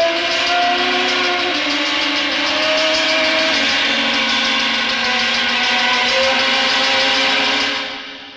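Loud dramatic film score: a dense cluster of sustained, slowly sliding clashing tones under a fast pulsing hiss. It fades out near the end.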